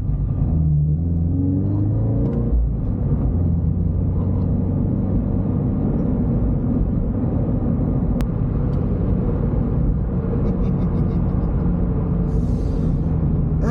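Toyota GT86's 2.0-litre flat-four engine running as the car is driven, a steady low rumble heard from inside the cabin, with the engine note rising briefly about a second in.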